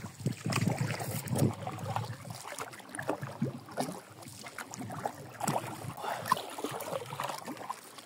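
Light knocks and clatter in a small rowing boat over faint water noise, with a low rumble in the first second and a half.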